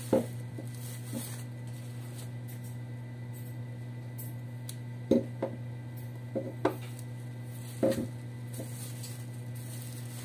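Honda K20 plastic ignition coil packs knocked and set down on a wooden tabletop: a handful of sharp clunks, the loudest right at the start and around five and eight seconds in, with bubble wrap crinkling between them. A steady low hum runs underneath.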